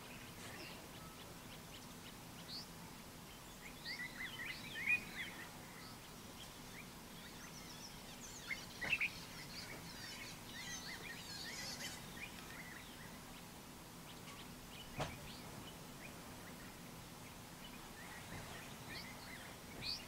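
Dawn birdsong: scattered chirps and short trills from several birds, coming in clusters, over a faint steady background hiss and low hum. A single sharp click sounds about three-quarters of the way through.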